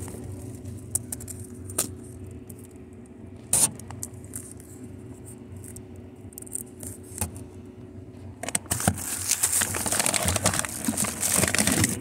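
Whirlpool refrigerator-freezer running with a steady hum, broken by a few sharp knocks. From about eight and a half seconds a loud scraping rustle takes over.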